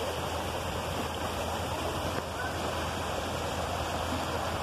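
Shallow river water rushing steadily over rocks and small rapids.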